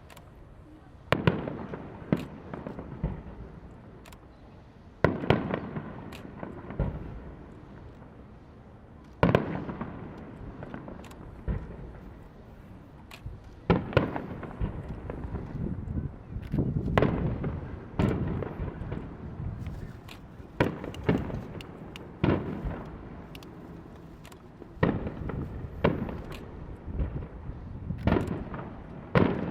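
Aerial fireworks shells bursting with sharp bangs every few seconds, each trailing off in a rumble, with smaller crackling bursts in between.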